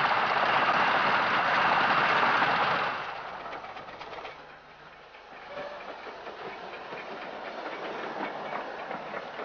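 Romney, Hythe & Dymchurch Railway 15-inch gauge steam locomotive and train on the move: a loud rush of running noise for about three seconds, then quieter steady running with faint rhythmic clicking.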